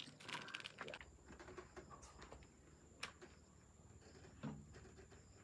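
Near silence with faint handling noises: a cluster of small clicks and rustles in the first second, a single sharp tick about three seconds in, and a soft thud about four and a half seconds in.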